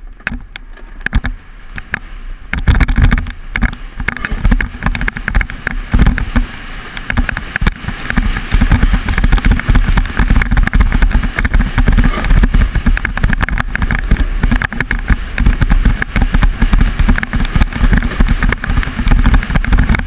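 A skeleton sled running fast down an ice bobsleigh track: a constant rumble and rattle of the runners on the ice mixed with heavy wind buffeting the head-mounted camera's microphone. It is lighter at first and turns into a loud, dense rumble about two and a half seconds in as the sled gathers speed, growing louder again later.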